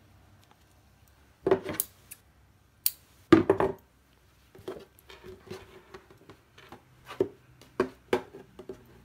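Handling noise of a fabric stocking being worked and laid on a wooden tabletop: a few sharp knocks and clatters in the first four seconds, then softer repeated taps and rustling.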